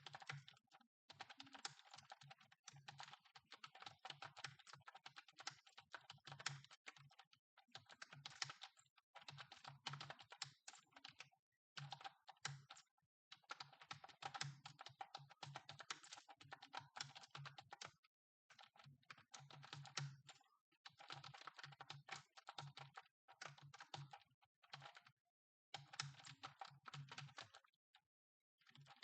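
Computer keyboard being typed on quickly, with keystrokes clattering in runs of a few seconds broken by brief pauses of under a second. The typing is quiet.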